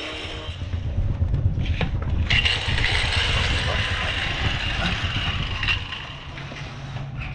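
Handheld angle grinder cutting ceramic tile: a steady high whine over an uneven low rumble from about two seconds in, easing off near the end.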